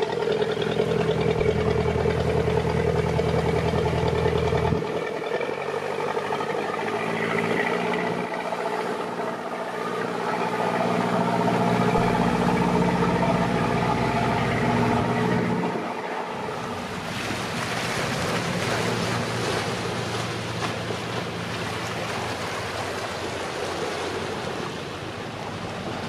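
Motor cruiser's engine running steadily as the boat passes close by, its note shifting a couple of times before it drops away about two-thirds of the way through; then the boat's wash sloshing and splashing against the bank.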